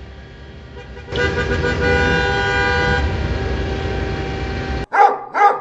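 Road traffic with a car horn sounding one long steady blast from about a second in, fading after a couple of seconds. Near the end it cuts abruptly to a few short pitched sounds.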